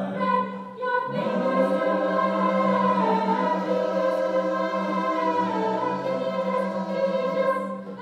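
Mixed choir of male and female voices singing held chords, with a short break about a second in before the chord comes back.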